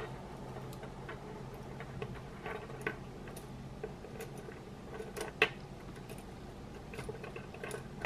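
Plastic LEGO Technic connector pieces clicking and rattling against each other as they are handled and pressed together: a dozen or so scattered small clicks, the sharpest about five and a half seconds in, over a faint steady hum.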